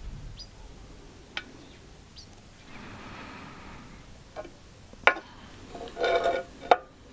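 Heavy steel discs and flanges being handled on a steel tabletop: a few sharp metal knocks, with a short ringing clink of metal on metal about six seconds in.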